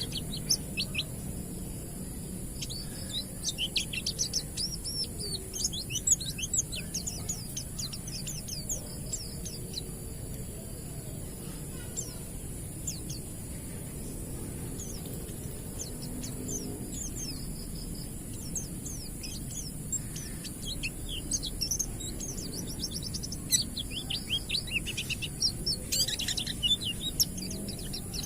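White-eyes (pleci) singing in the wild: bursts of rapid, high twittering chirps, thinning out around the middle and building again near the end. A steady high-pitched hiss runs underneath.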